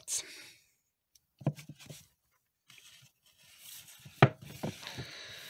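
Paperback books being handled on a wooden shelf, rubbing and sliding against one another. There is a knock about a second and a half in and a louder, sharper knock a little after four seconds.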